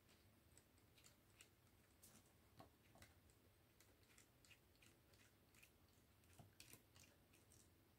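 Near silence with faint, irregular small clicks: screws being worked out of a plastic drone body with a small screwdriver.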